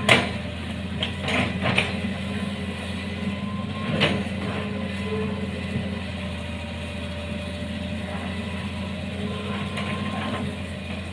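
Excavator's diesel engine running steadily, with a few sharp knocks: a loud one at the very start, several more about a second in, and another about four seconds in.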